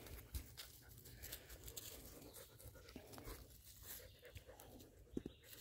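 Near silence, with faint scattered rustles and a few light ticks.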